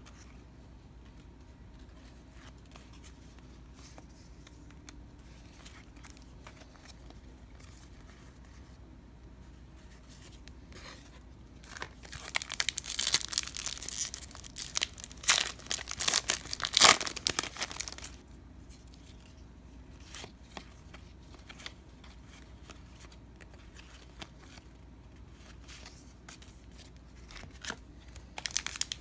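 A trading card pack wrapper being torn open and crinkled: a burst of crackling for about six seconds midway, with faint card handling before and after, and more crinkling starting near the end.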